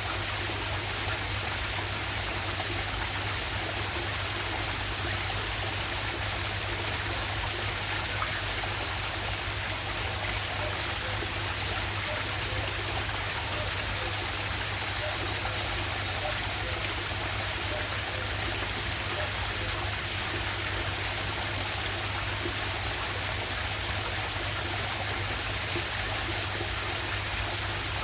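Water rushing steadily over a small waterfall and down a stream, an even, unbroken rush.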